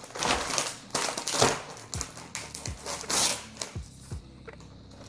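Background hip-hop music with deep bass-drum hits that slide down in pitch, about five of them, under sharp crisp hits.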